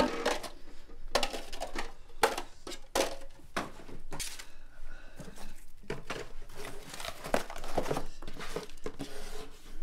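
Party rubbish being gathered up by hand: irregular rustling and crinkling of paper and plastic, with light clatter of plastic cups. Near the end a cardboard pizza box is handled.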